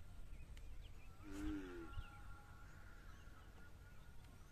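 Quiet outdoor ambience: a low rumble, faint scattered chirps, and one short pitched call a little over a second in.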